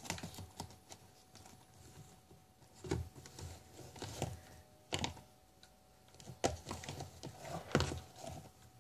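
Small plastic slime containers being picked up and set down on a tile floor: scattered light knocks and clacks, a second or so apart.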